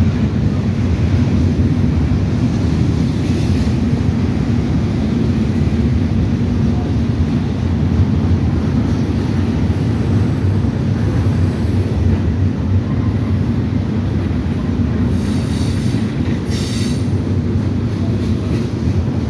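Freight train cars rolling past underneath: a steady heavy rumble of steel wheels on rail. Two brief high-pitched wheel squeals come near the end.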